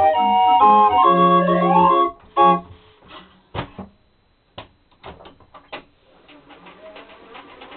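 A small organ with wooden pipes plays the closing bars of a march, ending on a held chord with a low bass note about two seconds in. A few sharp wooden knocks and clicks follow as the case lid is handled, then a faint fast rattle.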